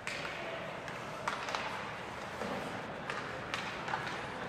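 Ice hockey play in an arena: several sharp knocks and taps of sticks and puck, scattered about half a second to a second apart, over a steady rink hum.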